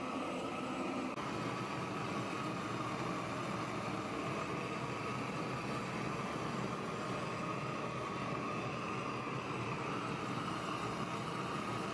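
Large propane torch burner running with a steady rushing hiss of the flame as it scorches end-grain pine floor blocks.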